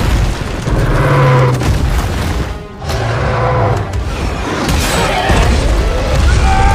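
Film battle soundtrack: booms and explosions over a dramatic music score, with a brief dip in loudness a little under three seconds in.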